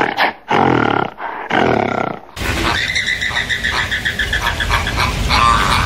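Three deep, roaring animal calls in a row, then an abrupt cut about two seconds in to a noisier animal recording with a rapid, evenly pulsing high-pitched call.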